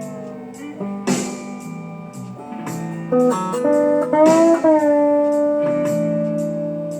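Lap steel guitar played with a slide: plucked notes that ring on and glide into and out of pitch, with a quick run of short notes in the middle and a bluesy feel.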